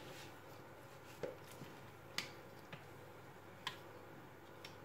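A handful of faint, short clicks and taps, spread a second or so apart, as thick cake batter is poured from a bowl into a springform cake pan.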